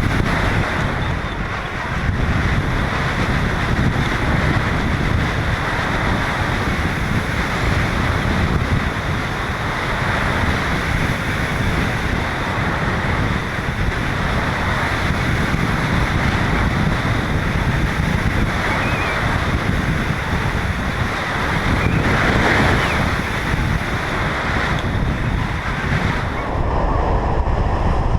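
Strong wind rushing over a GoPro camera's microphone, a steady loud roar heaviest in the low end, with the high hiss thinning out near the end.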